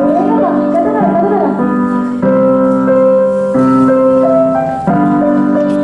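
Keyboard music: sustained chords that change about every second or so under a slow, simple melody, with some gliding, wavering tones in the first second and a half.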